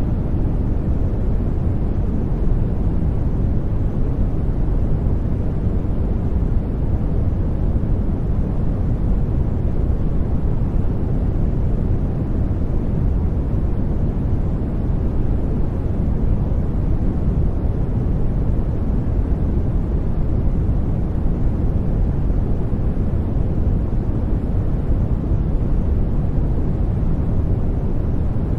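Steady sleep-masking noise, a deep, even rush with most of its energy low and no changes or spikes.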